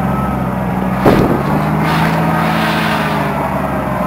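WWII military jeep's four-cylinder flathead engine running steadily at a constant pitch, with a sharp knock about a second in.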